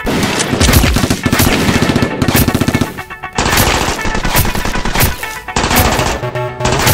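Automatic-gunfire sound effects dubbed over Nerf blasters: bursts of rapid shots with short breaks between them, over background music.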